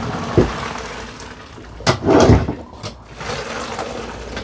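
Pot of cooked paccheri and its boiling water being poured out to strain. A rush of draining water tails off, with a knock early on and a louder clatter of the pot around two seconds in.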